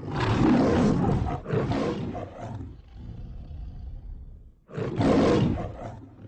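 Two loud, rough roars: the first lasts about two and a half seconds and tails off, and after a lull a second, shorter roar starts near the end.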